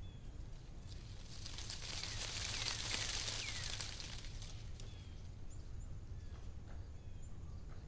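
Rural outdoor ambience: a steady low rumble with faint, scattered bird chirps. A hissing, rustling swell rises and falls about two to four seconds in.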